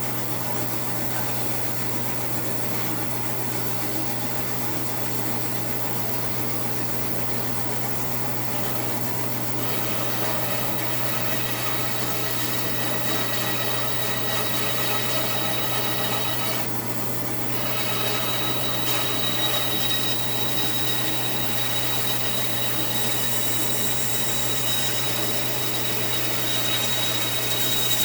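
2002 Central Machinery 14-inch bandsaw running with a steady motor hum while its blade saws through white oak. A thin high tone joins about two-thirds of the way in.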